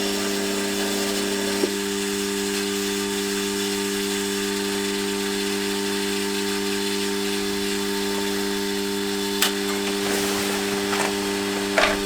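Electric starter motor of a Triumph Street Triple 675R cranking the three-cylinder engine in a steady whine, without the engine firing; the cranking cuts off suddenly at the very end.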